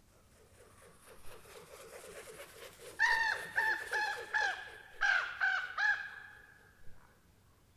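Common raven calling: a fast, low rattling run of notes, then about seven short calls in quick succession.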